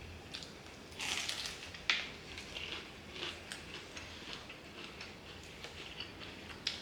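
Close-up eating sounds: biting into and chewing crispy fried chicken wings, with scattered small mouth clicks and crackles. A louder crunch comes about a second in, and a sharp click just before two seconds.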